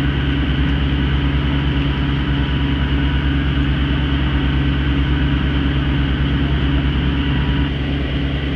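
A fishing vessel's engine running steadily: a loud, even, low drone that does not change in speed.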